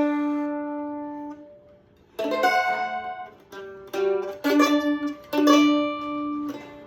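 Loar LM-310F mandolin playing a blues in G. A picked note rings out and fades over the first second and a half. After a short pause, a run of picked notes starts about two seconds in.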